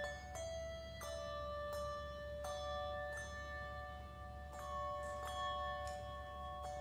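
Handbell choir ringing a slow passage of handbells. A new bell note is struck every second or two, and each ringing tone carries on under the next.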